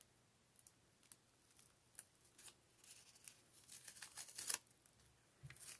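Heat tape and a paper sublimation transfer being peeled off a towel: faint scattered ticks and rustles at first, building to a short scratchy run of peeling around four seconds in.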